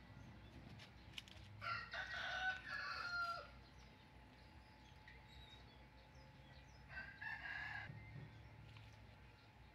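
A rooster crowing twice: a longer crow about two seconds in and a shorter, fainter one near the end.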